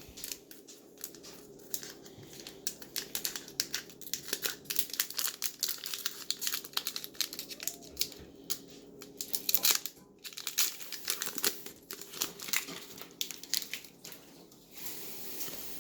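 Foil wrapper of a Pokémon trading card booster pack being crinkled and torn open by hand, a long run of irregular sharp crackles.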